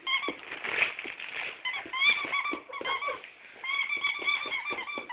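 A rubber squeaky toy squeaking again and again as a dog chews and pushes it about, short high squeaks a few times a second with light knocks and scuffs between them.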